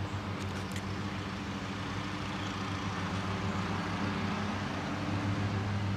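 A motor running steadily in the background: an even, low engine drone that holds the same pitch throughout.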